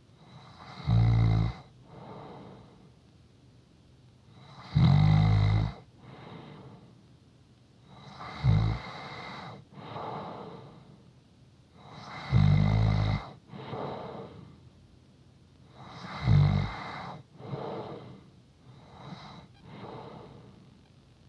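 A sleeping person snoring: five loud, low, rasping snores come about every four seconds, with softer breathing between them.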